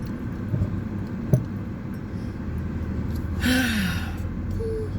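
A person lets out a breathy sigh, falling in pitch, about three and a half seconds in, over a steady low rumble. There is a short sharp click a little over a second in.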